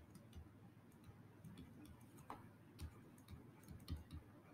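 Faint, irregular taps of a stylus on a tablet screen during handwriting, over near silence.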